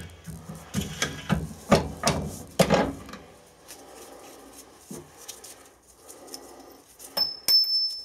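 Metal tools and a bronze plug being handled at a steel bench vise: a run of knocks and clinks during the first three seconds, a quieter spell, then a couple of sharp clinks with a brief high ring near the end.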